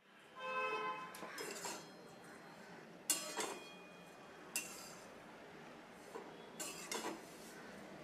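A spatula scraping and knocking against a metal kadhai as grated dried coconut is stirred in it, with sharp clatters about three, four and a half, and seven seconds in.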